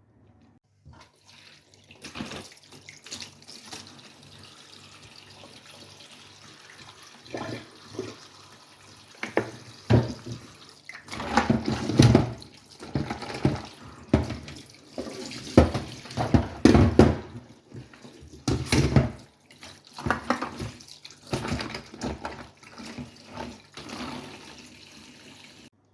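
Tap water running into a sink, starting about two seconds in, as an HP washable keyboard is rinsed under it. The water splashes irregularly, in loud surges, as the keyboard is moved through the stream.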